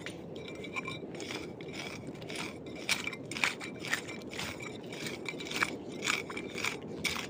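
Footsteps crunching and scraping over rough, littered ground, an uneven stream of crunches about two or three a second.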